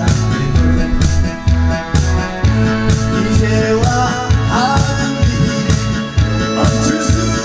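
Amplified trot song: a backing track with a steady, even beat and bass line, with a melody sung or played over it around the middle.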